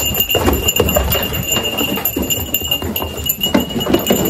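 Nigerian dwarf goats' hooves knocking and clattering against wooden stall boards and a gate as they jump up, with a gate latch rattling. A steady high whine sits behind it.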